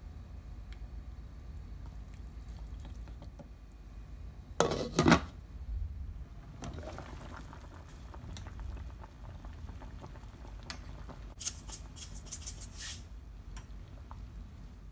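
Pot of squash and moringa soup bubbling, with a loud clatter of a utensil against the pot about five seconds in. Near the end, a quick run of metal fork clinks and scrapes against the pot as the soup is stirred.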